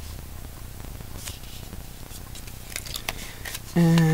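Small scissors cutting open a sample packet: light rustling of the packet, then a few quick sharp snips near the end.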